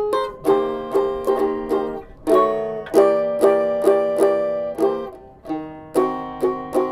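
Homemade upcycled cigar-box-style stringed instrument being strummed, repeated strokes on a few ringing chords, changing chord near two seconds and again near five seconds.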